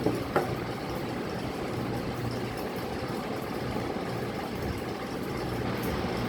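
A steady low motor hum with hiss, and two sharp clicks about half a second apart near the start.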